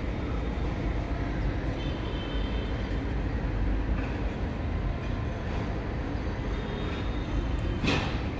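Steady low rumbling background noise, with a brief sharp noise near the end.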